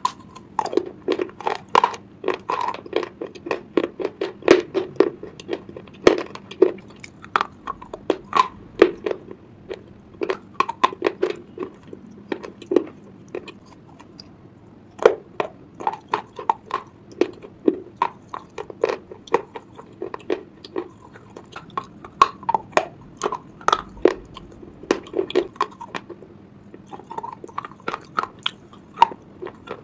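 Slate pencils being bitten and chewed close to the microphone: a long run of sharp, irregular crunches, pausing briefly about halfway through.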